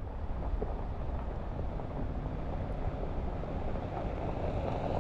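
Vehicle driving on a dirt road: a steady low rumble of engine and tyres on the dirt, with some wind noise.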